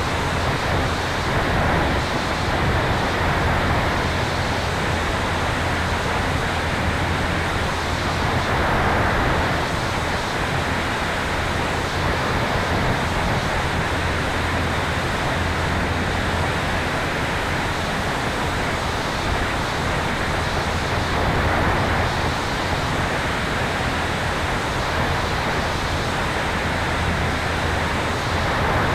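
Steady rush of wind and airflow over a tail-mounted camera on an electric Sonex Xenos airplane, with a low steady hum beneath it. The noise swells and eases gently.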